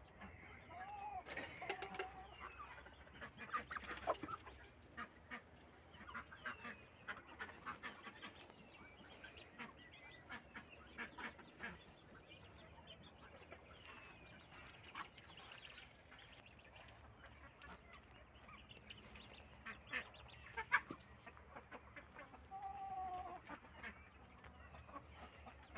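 Chickens and ducks calling, with scattered short clucks and quacks and a couple of longer drawn calls about a second in and near the end, as the flock settles to roost for the night.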